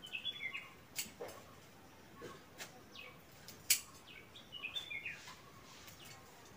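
A songbird sings two short phrases of quick, falling notes, near the start and again about five seconds in. Between them come a few sharp clicks of hand shears snipping stems; the loudest comes a little before four seconds in.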